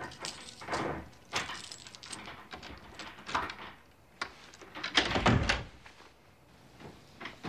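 A door being unlocked and opened: a run of short rattles and clicks, with the heaviest thud about five seconds in.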